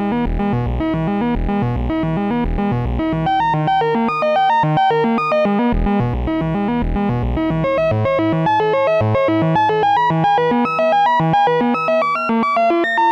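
Make Noise XPO oscillator playing a rapid stepped sequence of short synthesizer notes from René, its pitch transposed by a second sequence through the second 1V/oct input. The transposing sequence is being sped up and slowed down, so the melody jumps between intervals and drifts in and out of a sense of key; deep low notes thin out about seven seconds in.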